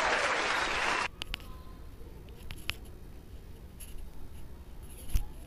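Applause that cuts off suddenly about a second in, followed by faint scattered clicks and scratchy rustles close to the microphone, with a soft thump near the end.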